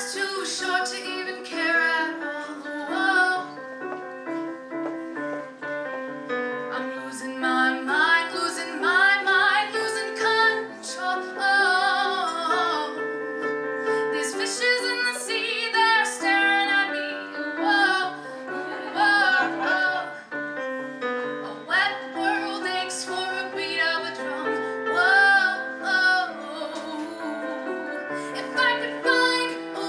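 A woman singing a slow song over piano accompaniment, holding notes with vibrato.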